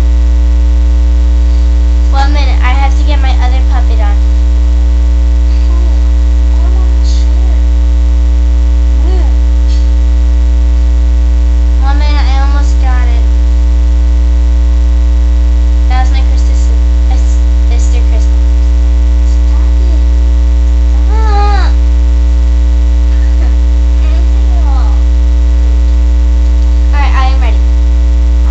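Loud, steady electrical mains hum with evenly spaced overtones, the loudest thing throughout. A girl's voice comes through faintly a few times under it.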